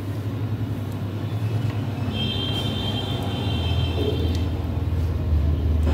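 Low steady rumble that grows louder in the second half, with a thin high-pitched tone for about two seconds in the middle.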